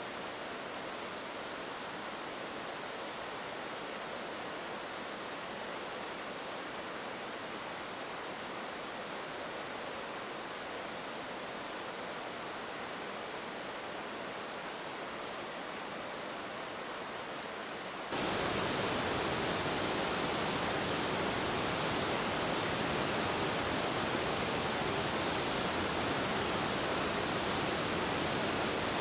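Steady rush of a tall cascading waterfall. About two-thirds of the way through it cuts suddenly to a louder, brighter, closer rush of a rocky mountain creek.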